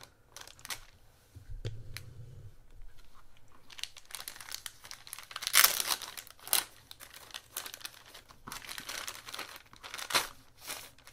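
Thin clear plastic bag crinkling as it is handled and pulled open around a plastic model-kit sprue, in irregular crackles, loudest a little past halfway.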